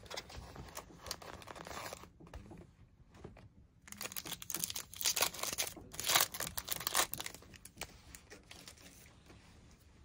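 Foil wrapper of a trading-card pack being torn open by hand and crinkled, in rustling bursts that are loudest between about four and seven seconds in.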